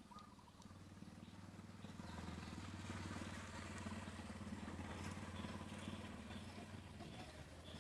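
Faint hum of a passing motor vehicle's engine, growing louder over the first few seconds and fading again toward the end.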